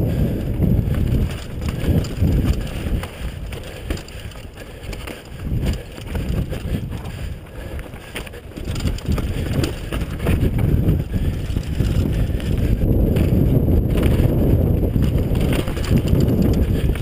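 Wind buffeting the action camera's microphone and mountain bike tyres rumbling over dirt and rock on a fast descent, with knocks and rattles from the bike over rough ground. It eases for a few seconds in the middle, then gets louder again.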